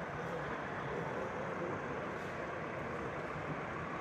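Steady background hubbub of a busy hall: indistinct distant voices over an even rumble, with no distinct events.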